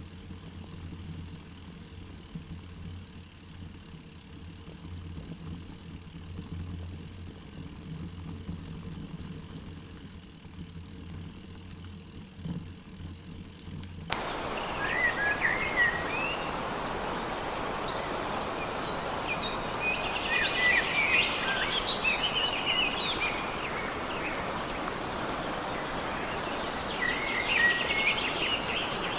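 A steady low hum with a few fixed tones, which cuts off abruptly about halfway. A mountain stream's rushing water follows, with small birds chirping over it a few times.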